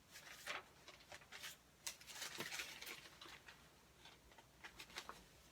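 Faint rustling and scattered light clicks and knocks of small objects being moved about, as someone rummages through things looking for something, busiest about two seconds in.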